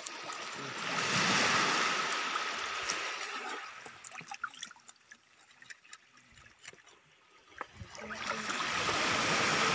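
Small waves washing up on wet sand, swelling twice: once from about a second in, fading by four seconds, and again from about eight seconds. In the quieter stretch between come light scraping clicks of a knife scaling a fish on a wooden board.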